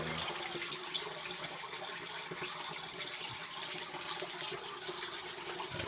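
Steady running water, water pouring into a basement sump pit.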